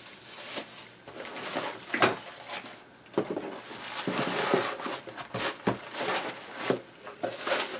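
Bubble wrap and cardboard packing rustling and crinkling as it is handled in and out of a shipping box, with irregular crackles and short knocks of cardboard.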